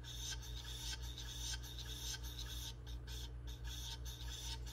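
LeverCraft Ultra coffee grinder running empty: a steady motor hum under a faint, uneven scratchy rasp as the dial is turned down and the burrs just touch. The rasp marks the touch point, used to check burr alignment.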